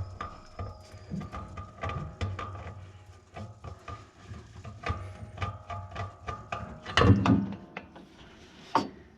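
Irregular metallic clicks, scrapes and knocks from an old oil filter being spun off by hand under a Polaris Ranger 570's skid pan, with one louder clunk about seven seconds in, over a faint steady hum.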